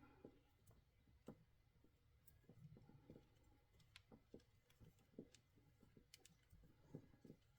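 Near silence with faint, scattered small clicks and taps: hand-handling noises from working the repair wrap on the cord.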